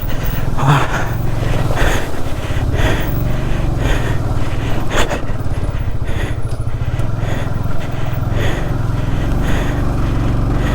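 Honda CBR150R's single-cylinder four-stroke engine running steadily at low revs as the bike is ridden, with a few sharp knocks along the way.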